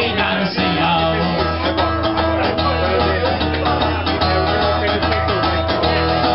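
Acoustic guitar strummed in a steady rhythm, a folk-song accompaniment.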